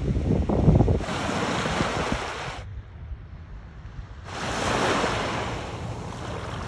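Wind buffeting the microphone for about the first second, then small waves washing onto a beach. The wash drops to a quieter hush for a second or two in the middle, then rises again.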